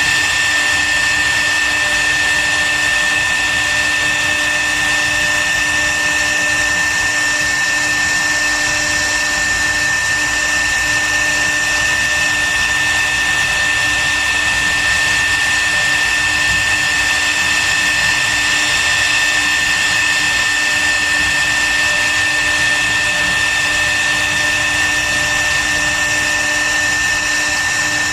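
CNC wood router's spindle running steadily with a high-pitched whine, several fixed tones over a noisy hiss that hold without change.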